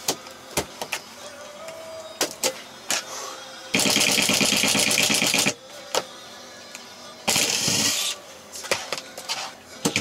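Cordless impact driver run in two rattling bursts, the first about two seconds long and the second under a second, with scattered knocks and clatter around them.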